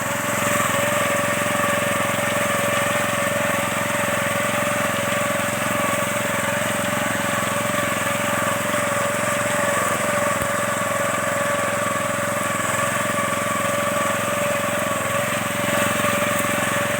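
Engine of a small wheat harvesting machine running steadily at constant speed, with an even high-pitched hum.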